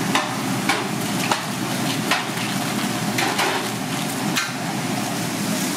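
Aluminium foil crinkling as a burger is wrapped and squeezed shut by hand: an irregular run of sharp crackles over steady kitchen background noise.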